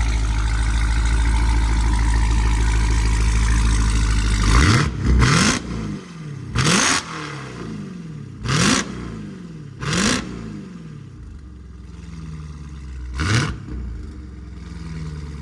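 Dodge Durango Hellcat's supercharged 6.2-litre V8 running steadily through a Borla ATAK cat-back exhaust, then revved in about six short blips, each rising quickly in pitch and dropping back.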